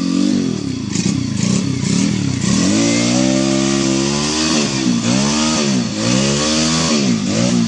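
Dirt bike engine revved in repeated blips, the pitch falling and rising about once a second in the second half, as the bike struggles through a muddy, watery rut. A steady hiss of spinning tyre and mud-and-water spray runs under the middle part.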